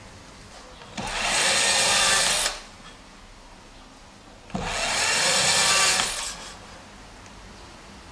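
Electric drill boring pilot holes into an MDF board for hinge screws: two short runs of the drill, each lasting under two seconds, the first starting about a second in and the second about four and a half seconds in.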